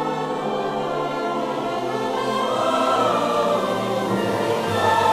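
Choral music: a choir singing long held chords over a musical backing.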